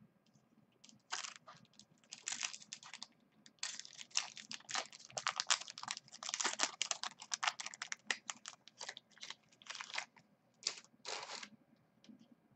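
Foil wrapper of a 2011 Bowman Platinum baseball card pack crinkling and tearing as it is opened by hand, in a long run of rapid crackles that starts about a second in and stops shortly before the end.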